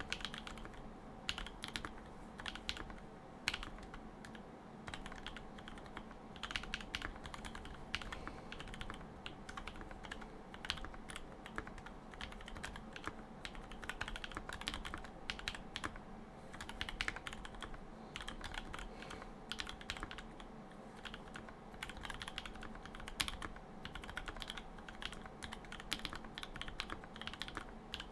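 Continuous typing on a Vanguard65 LE custom mechanical keyboard with Sinister linear switches, GMK keycaps and a carbon-fibre plate: a fast, uneven run of keystroke clacks.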